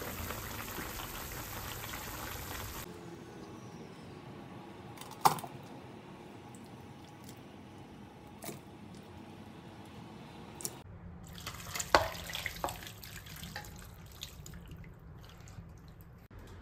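Braising liquid bubbling in a frying pan of pork and radish, then a metal ladle stirring and scooping the stew, with liquid sloshing and sharp clinks of the ladle against the pan and a stainless steel pot, the loudest about five and twelve seconds in.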